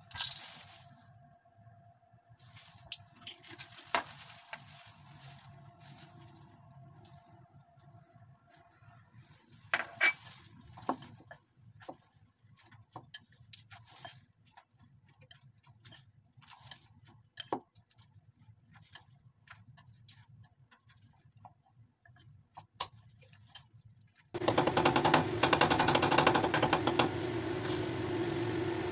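Chopsticks mixing salted shredded cabbage in a glass bowl: scattered light clicks and scrapes against the glass, with a faint steady hum during the first third. Near the end a loud, steady noise with a low hum in it starts suddenly and keeps going.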